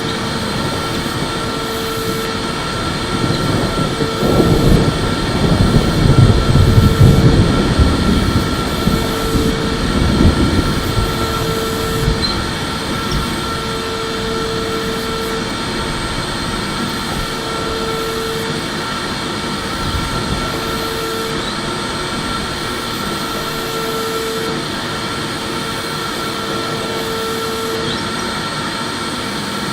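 Electric vacuum cleaner running continuously: a steady rushing airflow with a high motor whine. A louder, rougher low rumble swells for several seconds between about 4 and 11 seconds in, then settles back to the steady sound.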